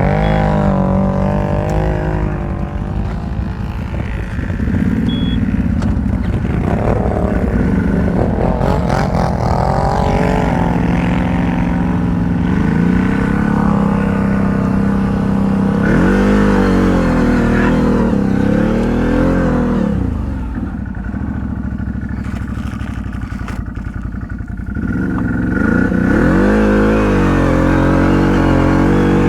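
ATV engine running under constantly changing throttle, its revs rising and falling again and again. The revs and loudness drop for a few seconds past the middle, then it revs up again near the end.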